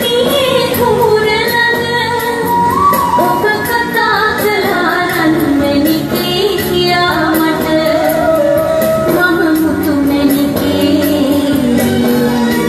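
A woman singing a melody into a cardboard tube held like a microphone, with instrumental accompaniment and a steady beat.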